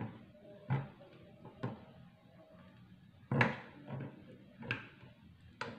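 A fork stabbing raw chicken pieces sitting in fish-sauce marinade in a plastic bowl, its tines knocking against the bowl: about seven short, irregular knocks, the loudest about three and a half seconds in.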